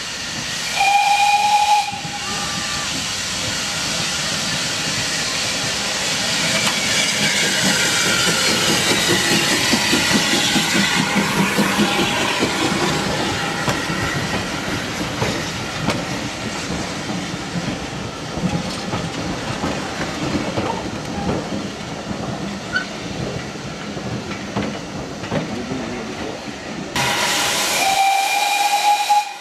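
Train of coaches rolling past with wheel rumble and clicking on the rails, framed by two short steam whistle blasts, one about a second in and one near the end. Over the second blast, a loud hiss of escaping steam as the small saddle-tank steam locomotive draws level.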